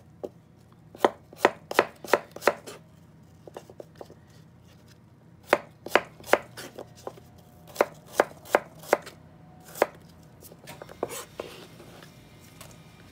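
Kitchen knife slicing an apple thinly, the blade knocking on a plastic cutting board in quick runs of four or five chops with short pauses between.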